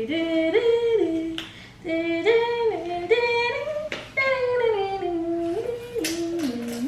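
A woman singing a wordless tune to herself, the same short phrase stepping up and down in pitch, repeated about three times.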